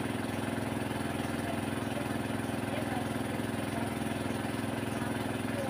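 An engine running steadily at idle, an even low hum with a fast, regular pulse.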